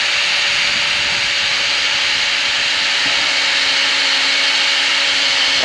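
Cordless drill running steadily under load, its bit boring into the hard, dry wood of a dead tree trunk: a steady motor whine over the grinding of the bit in the wood.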